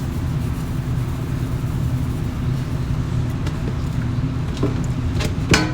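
A steady low mechanical hum, with a few light knocks near the end.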